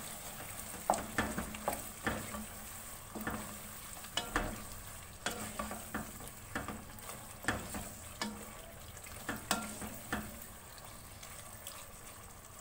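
Chicken masala with tomato paste and green chillies sizzling in oil in a pan while it is stirred, the utensil scraping and knocking against the pan at irregular intervals over a steady frying hiss. The stirring thins out over the last couple of seconds.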